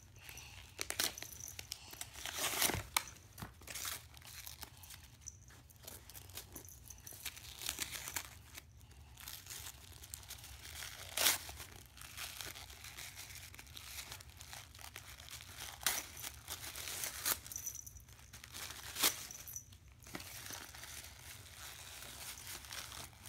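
Paper crinkling and tearing in irregular rustles as a gift box is unwrapped by hand, pulling off wrapping and tissue paper, with a few louder tears scattered through.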